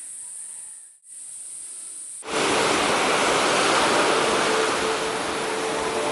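A faint, steady high-pitched hiss, then a sudden cut about two seconds in to loud, steady rushing water, like a waterfall or surf.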